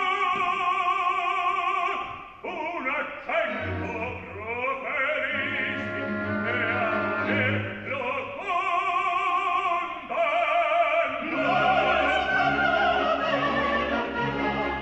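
Operatic singers singing with wide vibrato over a full orchestra in a live opera performance. The low orchestral part swells in about eleven seconds in.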